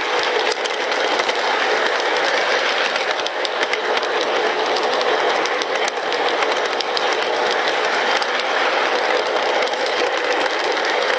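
Lionel O-gauge Rock Island E6 diesel locomotives running on Fastrack: a steady running rumble of wheels and motors, with many small clicks as the wheels pass over the track.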